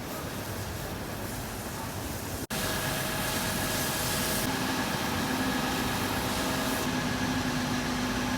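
Steady hum of a running engine, broken by a sudden momentary dropout about two and a half seconds in; after it, a steady low drone with fainter higher tones.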